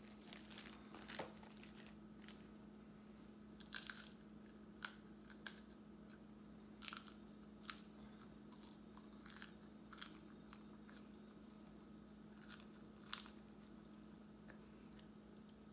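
Vegetable oil heating in a saucepan on a gas burner, giving faint, scattered sharp crackles and pops, about a dozen, as it nears frying temperature. A low steady hum sits underneath.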